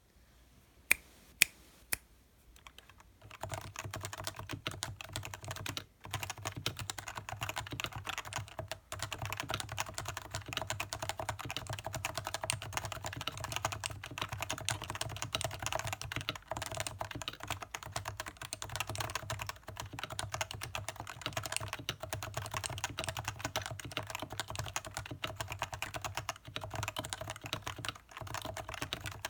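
Stock Leopold FC660C keyboard with Topre electrostatic capacitive switches being typed on: three separate keystrokes, then fast, continuous typing from about three seconds in, with a couple of brief pauses.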